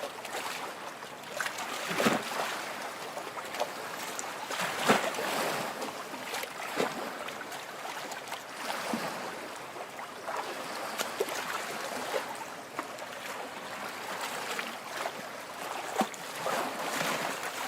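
Small lake waves lapping at the water's edge: a steady wash of water broken by irregular splashes every second or two.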